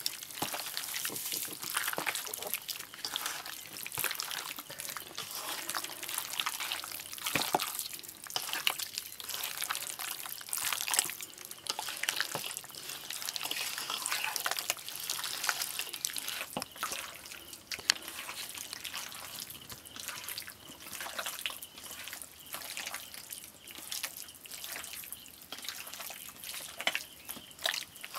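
A hand squelching and kneading raw chicken pieces in a wet marinade of egg, flour and spice paste in a steel bowl: continuous irregular wet squishing and smacking, with small clicks of the meat and fingers against the bowl.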